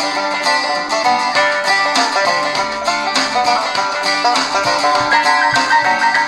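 Banjo-led bluegrass instrumental with guitar, playing through the Eton Grundig G5 portable radio's speaker as an audio test.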